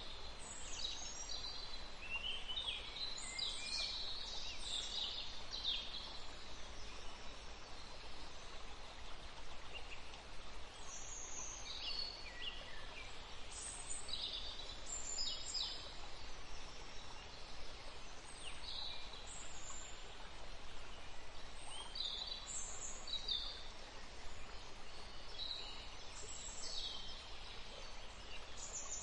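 Birdsong: many short high chirps and trills, a few every second or two, over a steady background hiss.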